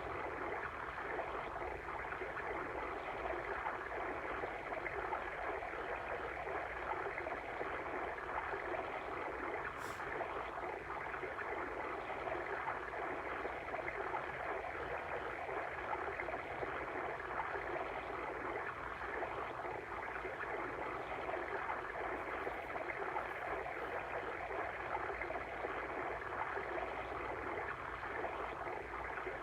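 Steady flowing water of a stream, an even rushing and burbling that does not change, with one faint click about ten seconds in.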